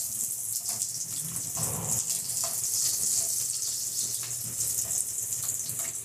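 Garlic cloves and ginger pieces sizzling in hot oil in a frying pan, a steady hiss, while a silicone spatula stirs them and scrapes and taps the pan now and then.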